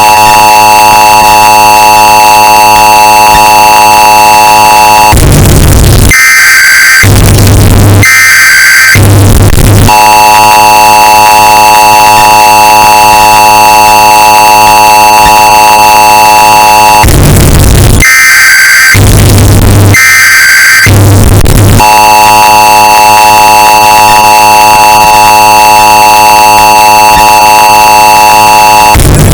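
Emergency Alert System sound, bass boosted and heavily distorted: the steady attention tone sounds for about seven seconds at a time, broken by a few seconds of short, harsh data bursts, the cycle repeating about every twelve seconds.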